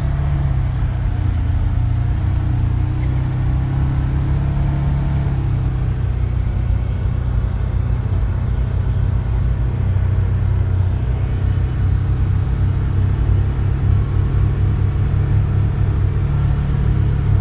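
UTV engine and drivetrain running steadily while under way, a low, even drone heard from inside the vehicle's enclosed cab.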